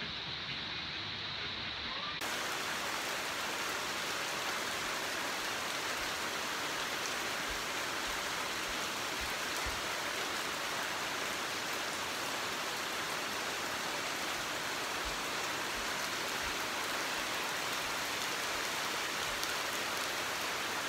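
Rain falling steadily on foliage and wooden decking, a dense even hiss. It comes in abruptly about two seconds in, where the recording cuts to a new clip. Before that there is quieter rain under a steady high-pitched hum.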